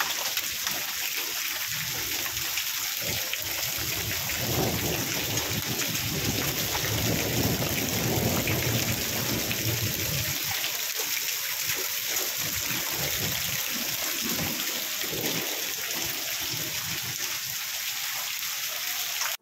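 Heavy storm precipitation falling in a hailstorm: a steady, dense patter of many small impacts, with a low rumble at times.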